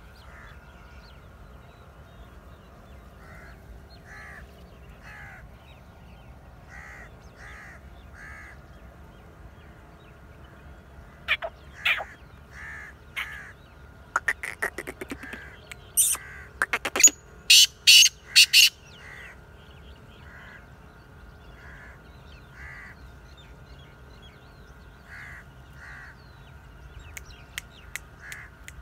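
Black francolin calling: a run of loud, harsh, grating notes about halfway through, with softer short calls in small groups before and after.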